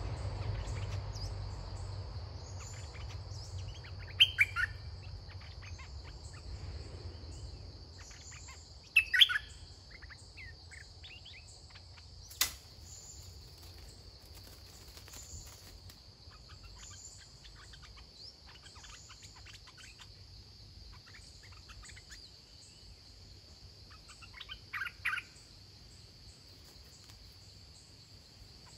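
Red-whiskered bulbuls singing short, chirpy phrases every few seconds over a steady, high insect drone. There is a single sharp click about twelve seconds in.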